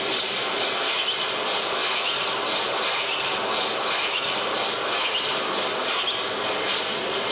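Harsh noise music (Japanoise) played live: a dense, unbroken wall of noise at a steady level, strongest in the upper middle range, with short squealing glides near the top.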